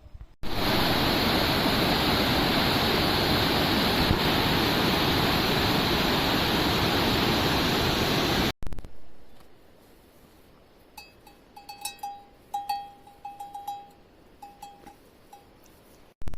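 Heavy rain pouring down, a loud steady hiss that cuts off suddenly about eight seconds in. After it, a much quieter stretch with a run of short, high chirping calls near the end.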